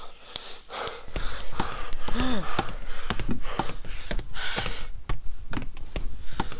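A man's heavy breathing and gasps, with a short rising-and-falling 'ooh' about two seconds in, over a run of quick, sharp clicks and taps.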